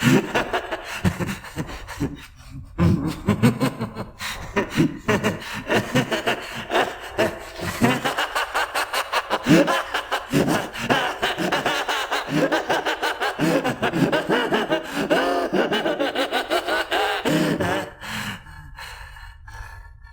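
A man's maniacal laughter, the villain's laugh from an anime dub. It comes in separate bursts at first, then from about eight seconds in breaks into fast, high, unbroken cackling that cuts off about two seconds before the end.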